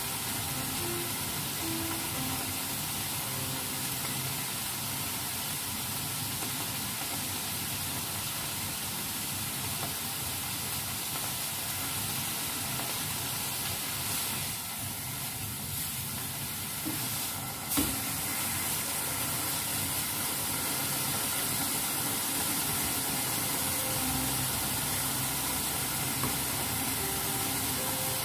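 Steady sizzle of beef and bean sprouts frying in two pans on a stove, with one sharp knock about two-thirds of the way through. Faint background music is heard near the start and end.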